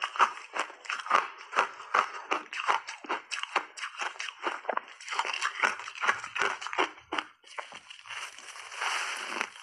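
Packed shaved ice being chewed close to a clip-on microphone: a rapid run of sharp crunches, several a second, with a brief pause and then denser crunching as a fresh big bite is taken near the end.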